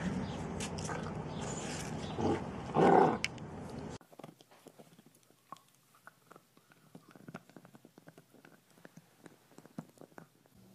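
A large dog lets out a short, loud vocal burst about three seconds in, over a steady background hiss. After a sudden cut, a small dachshund gnaws on a chew stick: faint, irregular clicks of chewing.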